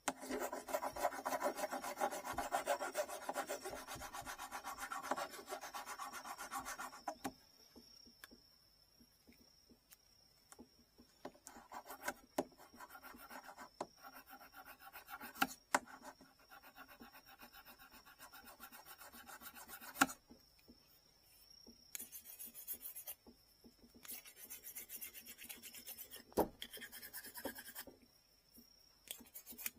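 Hand abrading of a Japanese rod tip: fast, fine rubbing and scraping strokes on the wood. The strokes run loudest and unbroken for about the first seven seconds, then come in shorter bursts with pauses and a few sharp clicks.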